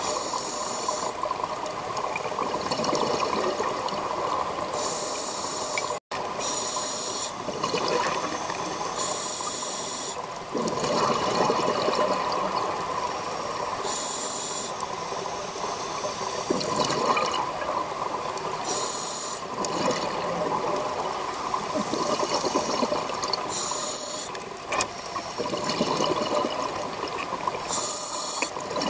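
Scuba diver breathing underwater through a regulator: a hiss on each inhalation, then a gurgle of exhaled bubbles, one breath every four or five seconds. The sound cuts out briefly about six seconds in.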